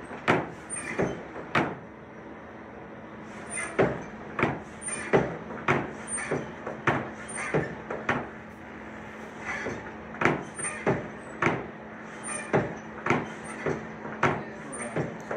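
Great two-stage bellows of a bottom-blast coal forge pumped by its handle to blow air through the fire, about three strokes every two seconds, each with a short high squeak, broken by two brief pauses. A steady low hum runs underneath.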